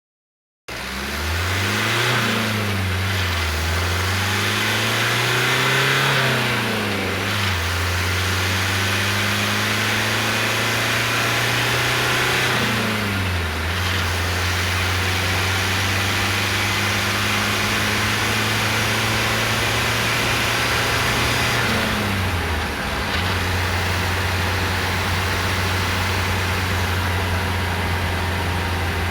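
Renault Master III van's diesel engine accelerating through the gears. The engine note climbs, then drops back at each of about four upshifts, and holds steady in a high gear near the end.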